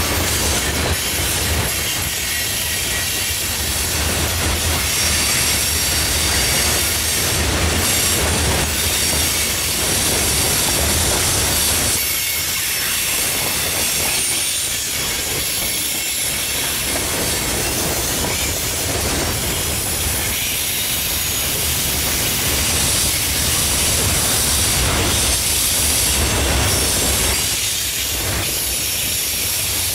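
Mixed freight train cars rolling past on steel rails: steady wheel-on-rail noise over a low rumble, with clicks from wheels over the rail joints and a faint high squeal from the wheels.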